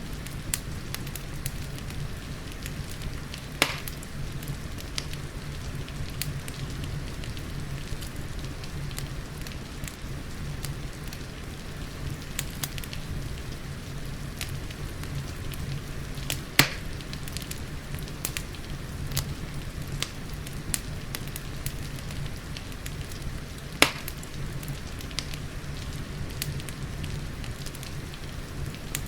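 Wood fire crackling in a fireplace, with frequent small ticks and three louder sharp pops spread across the stretch, over a steady low rumble and the even hiss of rain.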